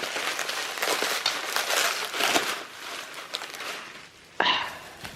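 Packing wrap crinkling and rustling as it is pulled and cut away from a shipped plant, busier in the first half and fainter later, with one sharp rustle near the end.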